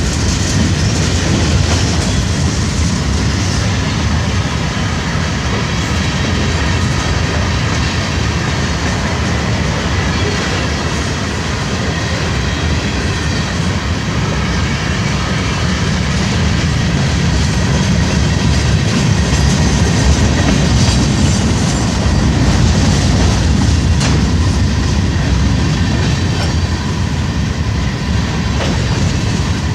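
Freight train cars rolling steadily past, wheels clicking over the rail joints over a continuous loud rumble.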